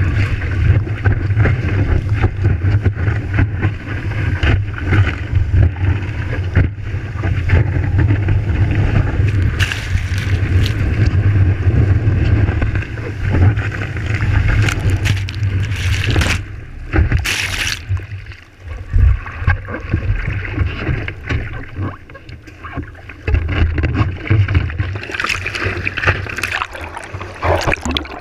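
Rushing, splashing seawater around a surfboard-mounted action camera as it rides a breaking wave, with heavy wind rumble on the microphone.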